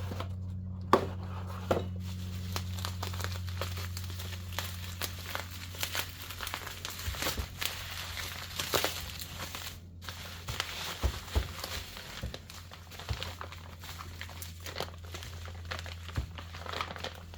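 Packaging crinkling and tearing in irregular bursts as a new camshaft is unwrapped, over a steady low hum.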